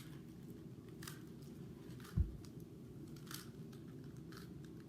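A Rubik's Cube being twisted by hand: a few faint plastic clicks of the layers turning, with one low thump about two seconds in, over a steady low hum.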